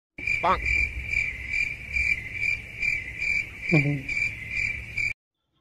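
Cricket-chirp sound effect: a steady high trill pulsing about two and a half times a second, starting and cutting off abruptly, the comedy cue for an awkward silence. Two brief falling-pitch sounds come through it, one about half a second in and one near four seconds.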